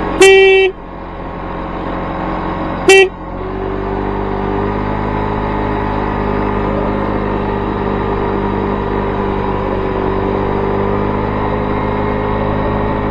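Honda Vision 50cc moped's horn sounding twice, a half-second toot and then a shorter one about three seconds in, over the moped's steady engine and road noise while riding.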